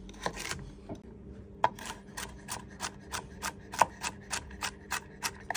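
Chef's knife chopping firm Hokkaido pumpkin into small cubes on a wooden cutting board: a couple of strokes at first, then a steady run of knocks on the board, about three a second, from about a second and a half in.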